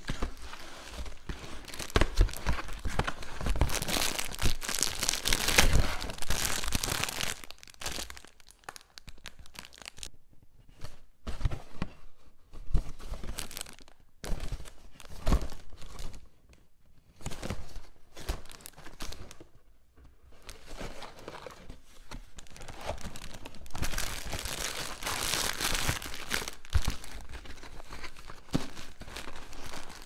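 Plastic courier mailer bag crinkling and a cardboard box of disposable face masks being torn open by hand. The rustling and tearing comes in dense bursts for the first several seconds and again near the end, with quieter handling noises in between.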